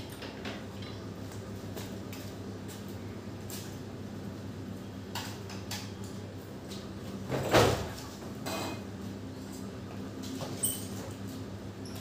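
Knocks and rattles of a wooden door and a parked motorcycle being handled by hand, with one louder thump about seven and a half seconds in, over a steady low hum.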